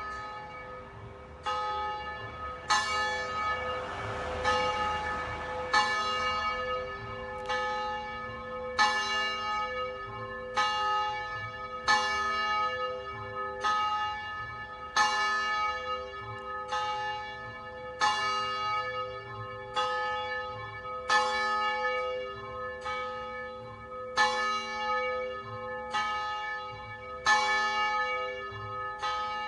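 Church bell being rung steadily, struck about once every second and a half, each stroke ringing on under the next.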